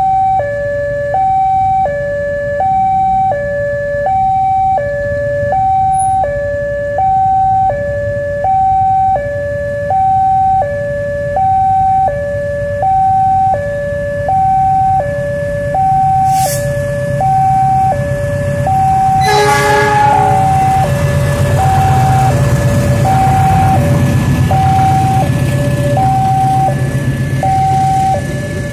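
Electronic two-tone railway level-crossing alarm alternating a high and a low tone, about one cycle every second and a half. About 19 seconds in the locomotive gives a short horn blast, and then the diesel-hauled passenger train passes with a steady low rumble under the alarm.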